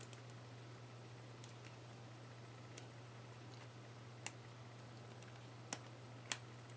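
Faint, sharp metal clicks and ticks from small steel AR-15 fire-control parts and their coil springs being handled and fitted by hand. A few separate clicks, the loudest about four, five and a half, and six seconds in, over a low steady hum.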